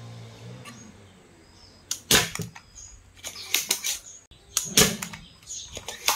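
A transformer soldering gun's steady mains hum dies away within the first second. Then come sharp snaps and clicks from a spring-loaded desoldering pump being fired and cocked, loudest about two seconds in and again just before five seconds.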